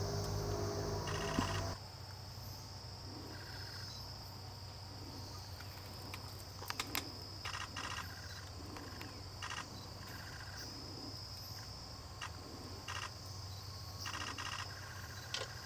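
Insects calling: a steady high-pitched drone with short chirps repeating about once a second. A low hum is heard for the first second and a half, then cuts off, and there are a few sharp clicks about seven seconds in.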